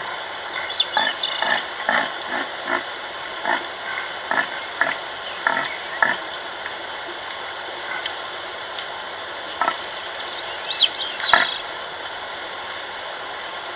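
Farm animals calling: short calls repeated about twice a second for the first six seconds, then scattered calls, with a few high chirping calls mixed in.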